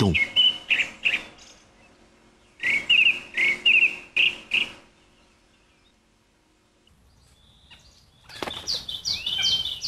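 A bird calling in runs of sharp, quickly repeated chattering notes: one run at the start, a louder run a few seconds in, a quiet spell, then another run near the end with a rising-and-falling note.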